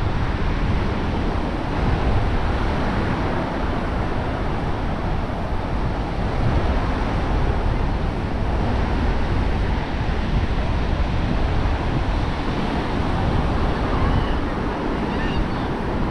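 Wind blowing across the microphone in a steady low rumble, with ocean surf washing on the beach behind it.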